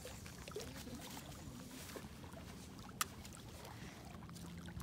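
Faint lapping of small waves at the rocky edge of a lake, with a single sharp click about three seconds in.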